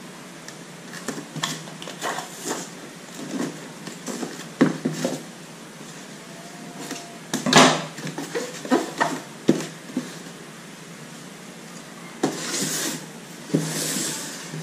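Styrofoam growbox being handled while tape is pressed over its vent slots: irregular taps, knocks and rubbing, with one sharp knock about halfway through and two longer scraping rasps near the end as the box is turned over.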